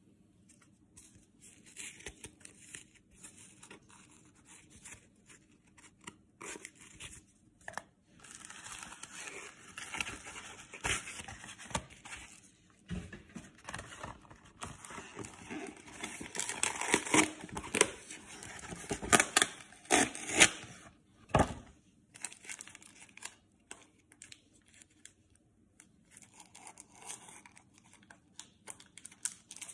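Sports card packaging being handled: crinkling, rustling and tearing in irregular bursts, loudest in the middle of the stretch.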